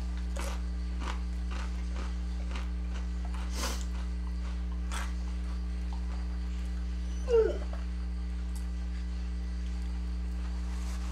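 A dog gives one short whine about seven seconds in, over scattered faint crackles of chips being picked through on a paper towel.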